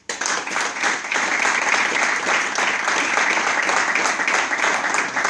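A small group applauding: many hands clapping together in a dense, steady patter that breaks out all at once.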